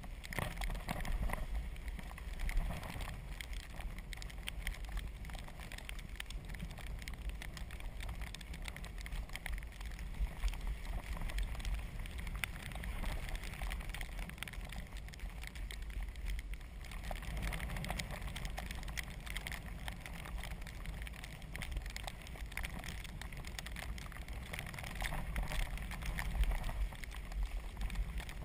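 Azub recumbent trike rolling along a wet, slushy road: a steady hiss of its tyres through the slush over a low rumble, with scattered small clicks.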